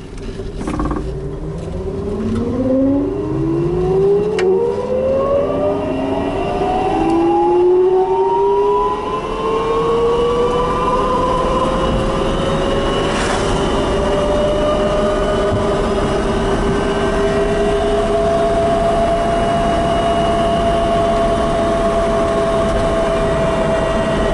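SAM three-wheeled electric car's electric drive whining as it accelerates, the whine rising in pitch for about ten seconds and then holding steady at cruising speed, over tyre and road noise heard inside the cabin.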